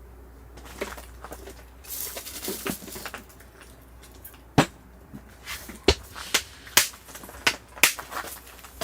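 Firewood burning in a campfire, crackling with irregular sharp pops that start about half a second in and grow more frequent and louder through the second half.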